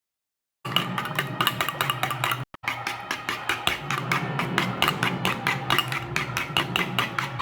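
Rapid, even knocking of a utensil in the kitchen, about six or seven strokes a second, starting suddenly and briefly cutting out once partway through.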